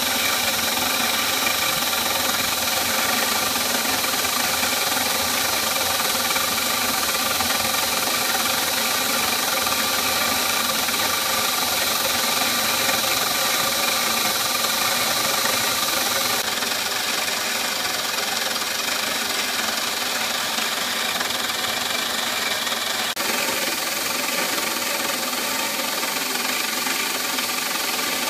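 CNC milling machine's spindle and end mill cutting a clear plastic block, a steady machining noise with a high tone running through it. This is a finishing pass cleaning up the first rough cut. The sound changes slightly about 16 seconds in and again about 23 seconds in.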